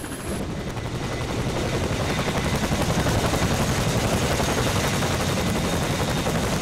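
Boeing CH-47 Chinook's tandem rotors and turbine engines running, growing louder over the first few seconds and then holding steady.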